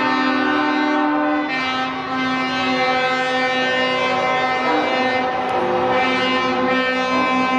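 Several truck air horns blowing long, overlapping blasts as a chord of steady tones. The mix of pitches changes about a second and a half in and again around five seconds in, as horns stop and others join.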